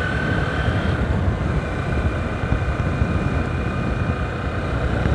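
Steady engine and tyre noise of a car cruising along a highway, with a faint high whine above the rumble.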